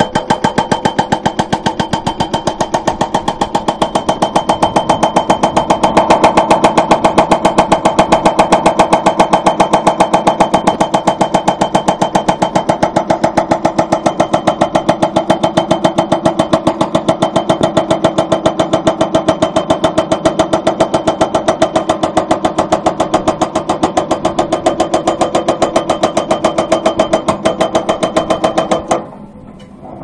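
Excavator-mounted hydraulic breaker hammering its chisel into rock with a rapid, even run of blows. The hammering stops abruptly about a second before the end.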